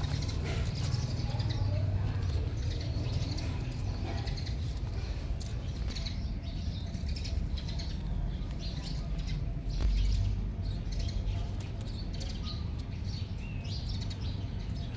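Small birds chirping in short, scattered calls over a steady low rumble, with a brief louder low swell about ten seconds in.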